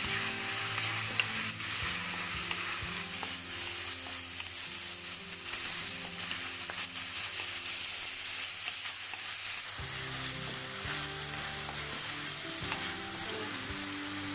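Chopped shallots and tomato sizzling in hot sesame oil in a clay pot while they sauté, with stirring. The frying hiss is steady throughout.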